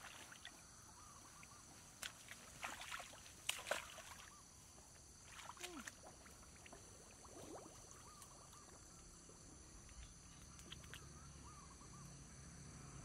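Faint splashing and sloshing of legs wading in shallow muddy water, with a few louder splashes about two to four seconds in and another near six seconds. Faint chirps now and then.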